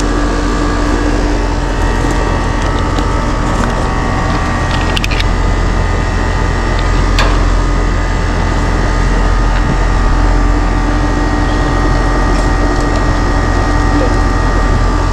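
Outdoor air-conditioner condensing unit running steadily, its compressor and condenser fan giving a constant hum with a few steady tones. A few small clicks come about five and seven seconds in.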